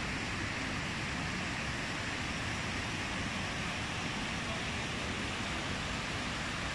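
Trevi Fountain's water cascading into its basin, a steady even rush.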